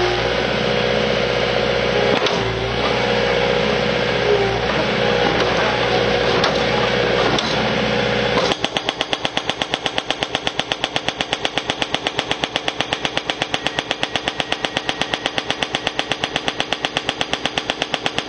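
Compact track loader's engine running steadily. About eight seconds in, a Kent KF9 hydraulic hammer starts hammering its chisel on a steel plate: a fast, even train of sharp blows, about seven a second.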